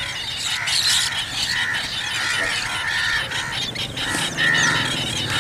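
Wetland birds calling: a steady string of short, arched, nasal call notes, two or three a second.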